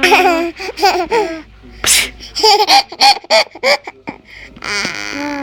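A baby laughing in repeated short bursts at a woman's sneezing, with a short sharp sneeze about two seconds in. Near the end a woman's long drawn-out 'aaah' starts, the wind-up to the next sneeze.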